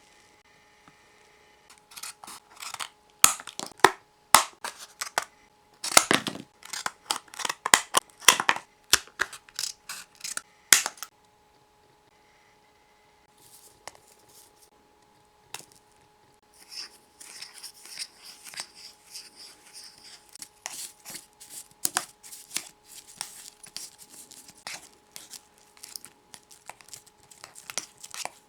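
Packaging of a Popin' Cookin' takoyaki candy kit being handled and opened: crinkling plastic and paper with sharp snips and tearing, in two busy stretches with a quiet pause of a few seconds between them.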